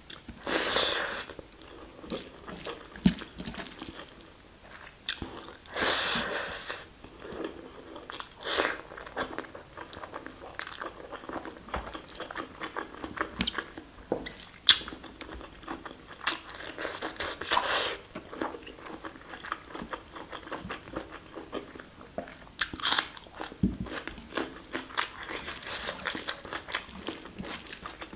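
Close-miked eating sounds: chewing and mouth smacking on mouthfuls of basmati rice with spicy mutton curry, eaten by hand, coming in uneven bursts of small clicks.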